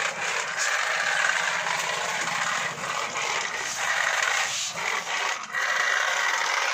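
Remote-control toy car running on a hard floor: its small electric motor and plastic gears whirring steadily, easing off briefly a couple of times.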